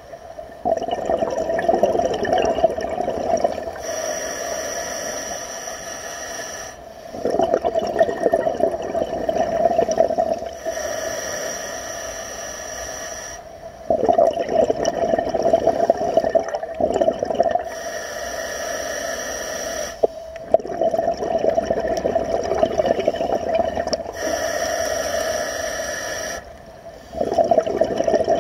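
Scuba diver breathing through a regulator underwater. A thin hiss on each inhale alternates with a loud bubbling rush of exhaust bubbles on each exhale, in a slow steady cycle of about five breaths.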